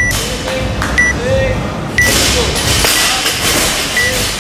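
Workout countdown timer beeping: a short, high beep once a second, counting down the last seconds before a timed workout starts.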